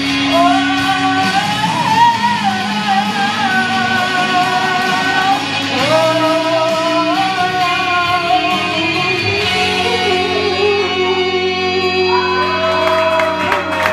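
A woman singing a pop ballad live into a microphone, long held notes with vibrato, over a backing track with guitar.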